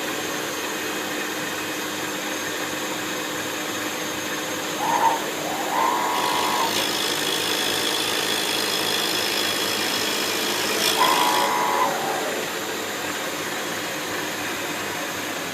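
CNC milling machine running as it mills a flywheel, a steady machine hum throughout. A higher-pitched whine of the cutting comes in about six seconds in and stops about eleven seconds in, with a few short tones along the way.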